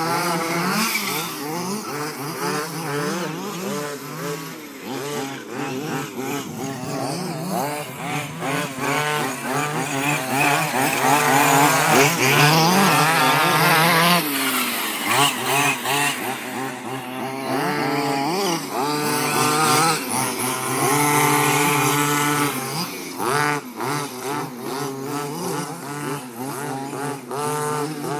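Small two-stroke petrol engines of 1/5-scale RC off-road trucks, several at once, revving up and down as they race, with a high, buzzing, chainsaw-like tone.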